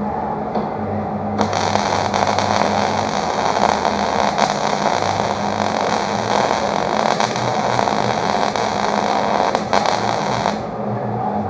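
Wire-feed welder arc crackling steadily as a bead is laid on steel flat bar, starting about a second and a half in and stopping shortly before the end. A low steady hum runs underneath.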